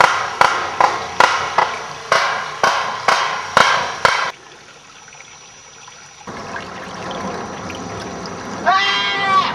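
Footsteps crunching through dry fallen leaves and creek stones, about two steps a second, stopping about four seconds in. Near the end a person's voice sounds in short rising-and-falling cries.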